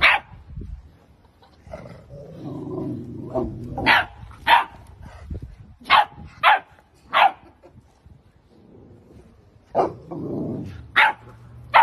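Rottweiler puppy barking in short, sharp yaps, about nine of them in twos and threes, with low growling between the barks as it play-challenges an adult dog.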